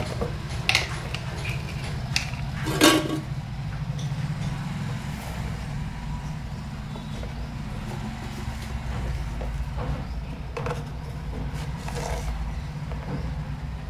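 Kitchen handling sounds: a few knocks and clinks of utensils, the loudest just under three seconds in, then a plastic spoon scooping sugar in a plastic jar, over a steady low hum.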